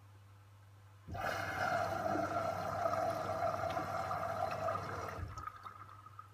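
LG TurboWash front-loading washing machine in its fill stage: water rushes into the drum, starting suddenly about a second in and stopping about four seconds later, while the drum turns the cotton load. A low machine hum runs underneath.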